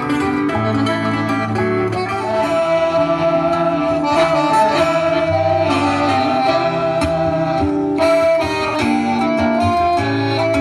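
Live instrumental música caipira: plucked acoustic strings playing a running accompaniment under long held melody notes.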